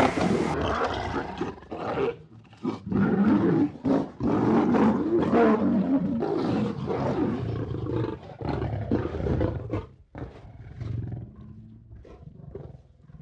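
Lion roaring: a long run of repeated deep calls, loudest through the middle and trailing off into quieter, sparser calls near the end.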